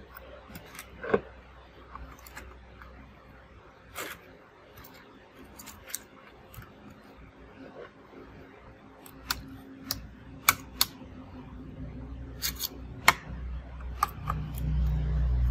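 Scattered sharp clicks and taps of hands and a screwdriver working on a stripped laptop's plastic chassis and motherboard. A low hum builds in the second half and is loudest near the end.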